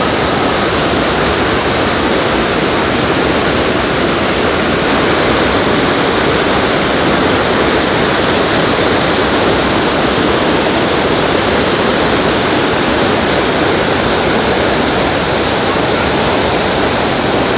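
The Rhine Falls, a large waterfall, crashing with a loud, steady, unbroken roar of falling water.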